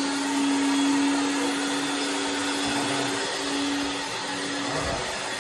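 Countertop blender running on the puree setting, blending a thin red liquid, its motor giving a steady hum over a rushing whir.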